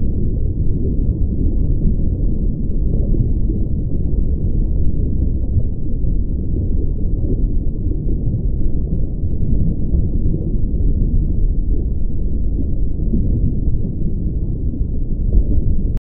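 A steady, deep, muffled noise with nothing high in it and no distinct events, running evenly throughout: the sound bed added under the animated bubble end screen.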